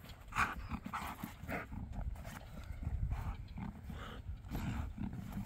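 A shepherd-type dog making short breathy sounds as it tugs and runs with a bite pillow, with scuffs and steps of feet on dry grass.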